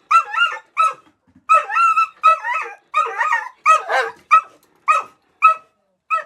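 A dog giving a run of about ten short, high-pitched, whiny barks and yips, each wavering in pitch. It is typical of demand barking from a dog pestering for its walk.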